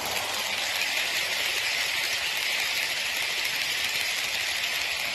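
Model train rolling along sectional track close by: a steady, even rattle and hiss of its wheels running on the rails as the coaches and tank wagons pass.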